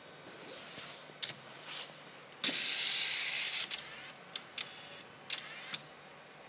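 Robotic cartridge picker of an HP StorageWorks 1/8 tape autoloader moving: short motor whirs and sharp clicks, with a louder whir that starts suddenly about two and a half seconds in and lasts about a second.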